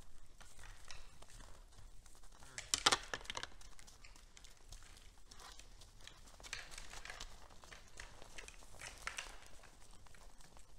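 Rustling and crunching from red deer feeding at a hay pile in snow, pulling at the hay and shifting their hooves, in bursts, with the loudest cluster about three seconds in and two weaker ones later.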